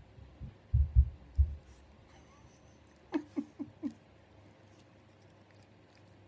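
Pug puppy gnawing on a carrot held in a hand: a few dull low thumps in the first second and a half, then about three seconds in four quick, short squeaky grunts.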